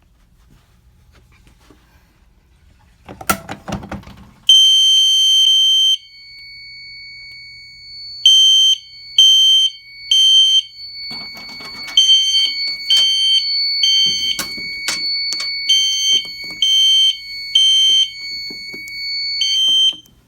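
A fire alarm pull station is pulled with a short clatter about three seconds in, and the Gentex Commander horn comes on at once. It gives one longer blast, then short high pulses in groups of three (temporal code 3), over a steady high whine that stops shortly before the end.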